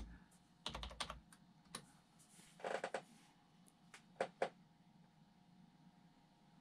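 Computer keyboard keystrokes typing a terminal command: single clicks and short quick runs, stopping about four and a half seconds in.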